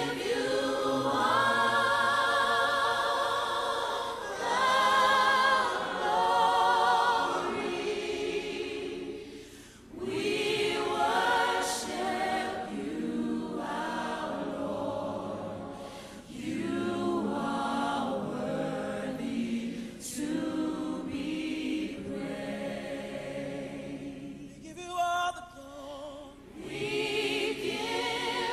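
A group of voices singing a slow worship chorus in long held lines, with short breaks between phrases.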